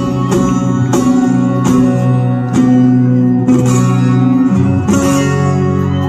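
Twelve-string acoustic guitar played live in an instrumental passage, strummed in a steady rhythm of about two strokes a second over ringing low notes, with a chord change about four and a half seconds in.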